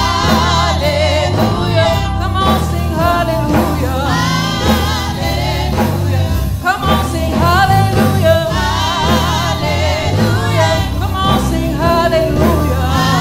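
Gospel song: a praise team singing with wavering, held notes over live band accompaniment with a steady bass line.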